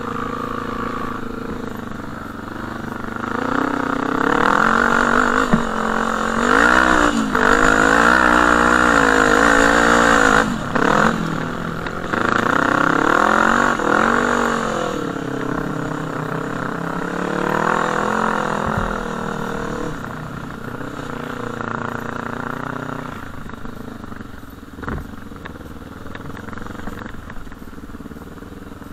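Quad bike (ATV) engine revving up and down under throttle, its pitch rising and falling again and again. It is loudest in the first half, then settles to a quieter, steadier run.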